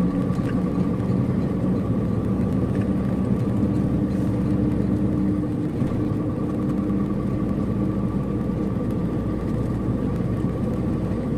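Road vehicle driving: steady engine and road noise with an even hum.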